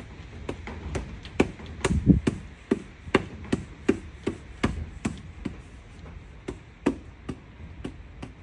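Rusty diagonal cutters snipping through a rubber windshield edge seal with a metal band inside it: a run of sharp snaps, about two to three a second, with no pause.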